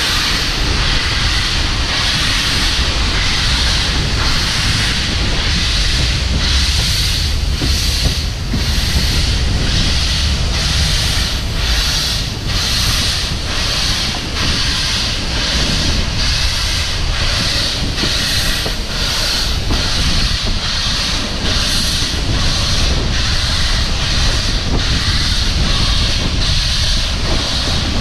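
Steam locomotive working, with a steady hiss of steam and regular exhaust beats about one and a half a second over a low rumble.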